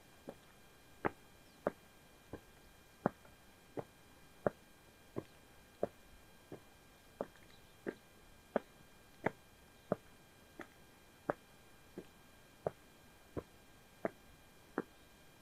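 Footsteps at a steady walking pace, one sharp step about every 0.7 seconds. A few faint steady high tones sit underneath.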